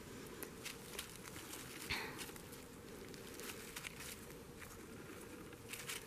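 Faint rustling and scattered small crackles of dry pine needles and grass as a hand picks and handles a mushroom.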